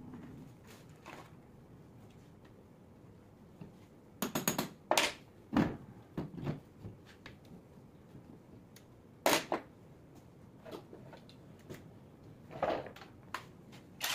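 Metal hand tools and alternator parts clinking and knocking as the alternator is taken apart in a bench vise. A cluster of sharp knocks comes about four to six seconds in, then single clanks further on.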